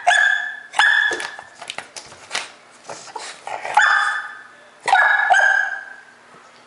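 English bulldog puppy barking in sharp, high-pitched barks, about five in all, with softer yelps in between.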